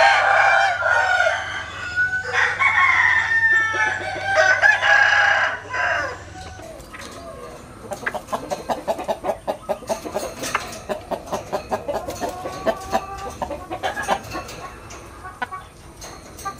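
Bantam rooster crowing, loud drawn-out calls through the first six seconds or so, followed later by a run of short, quick clucks.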